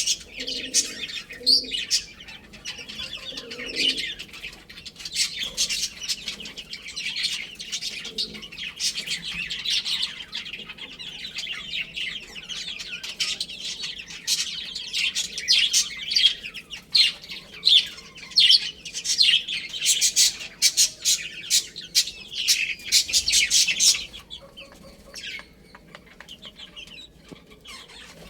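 A group of baby chicks peeping in a dense, rapid, high-pitched chorus that thins out abruptly near the end to a few scattered peeps.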